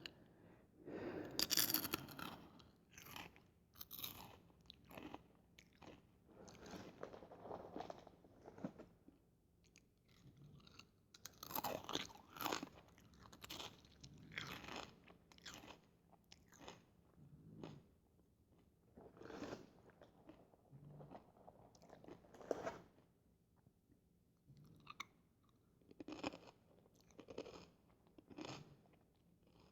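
Fritos corn chips crunching as they are bitten and chewed close to the microphone, in bursts with short pauses between them. The loudest bite comes about a second in.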